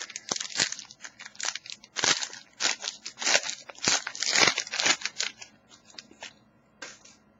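A sealed trading-card pack being torn open by hand, its wrapper crinkling and tearing in quick irregular crackles that thin out to a few faint rustles in the last couple of seconds.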